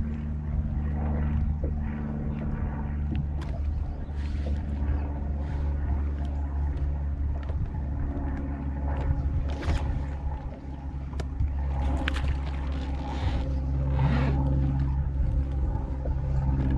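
Boat motor running steadily with a low hum, its tone shifting near the end, under scattered knocks and splashes of handling on the boat.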